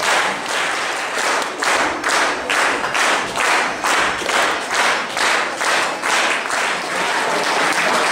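An audience clapping in time, about two claps a second, which breaks into steady applause about seven seconds in.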